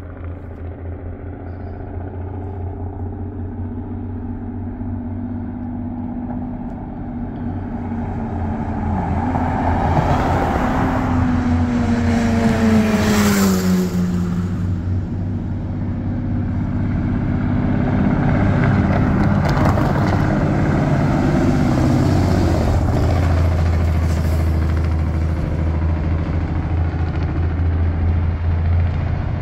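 Semi-trucks coming down a steep mountain grade on their diesel engine brakes: a low, pulsing engine-brake rumble that grows steadily louder as a truck approaches. About halfway through, the engine's pitch drops, and then a second loud stretch of engine-brake rumble follows.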